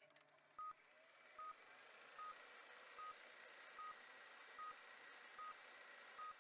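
Film-leader countdown beeps: a short, high, single-pitched beep with each number, eight in all, evenly spaced about every 0.8 seconds, over a steady hiss.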